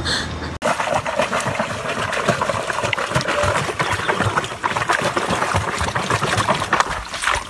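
Shallow muddy stream water splashing and sloshing as sticks are churned through it, with many small irregular splashes and crackles.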